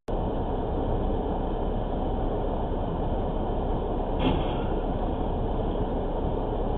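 Steady car road and engine noise picked up by a dashcam inside a moving vehicle. About four seconds in there is one brief, faint knock.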